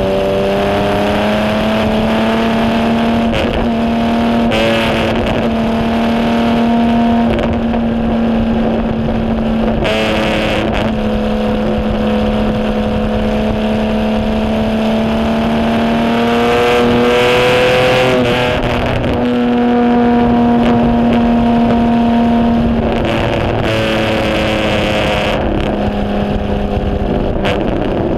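Onboard sound of a 1951 HW Alta-Jaguar's Jaguar straight-six racing engine under full race load, its revs climbing and dropping back several times as it changes up and down through the gears.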